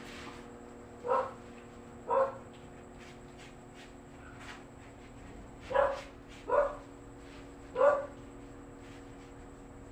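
A dog barking five times: two single barks about a second apart, then a closer group of three a few seconds later. A steady hum runs underneath.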